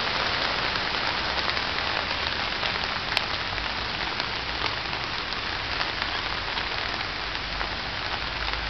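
A steady hiss of noise, with faint scattered ticks through it.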